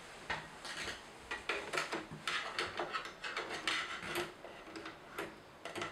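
Mac Pro RAID card being handled in the Mac Pro's PCIe card bay: its metal bracket and board knocking, clicking and scraping against the chassis in quick irregular taps and rubs as it is manoeuvred toward the top slot.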